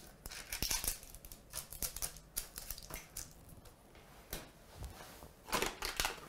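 Baking paper rustling and crinkling with small taps as fingers press and smooth it into a metal baking tray, a little louder about five and a half seconds in.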